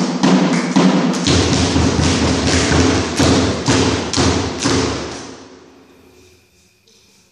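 Dance music with a heavy, pounding drum beat of about three strikes a second, fading out over the last two seconds.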